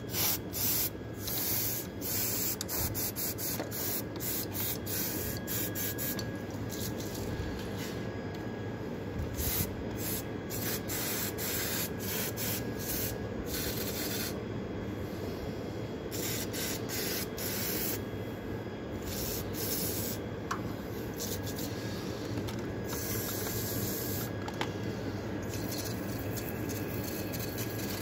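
Aerosol brake cleaner spraying in repeated hissing spurts. There is a quick series of short bursts in the first few seconds, then longer ones held for a second or two, used to degrease an oily engine.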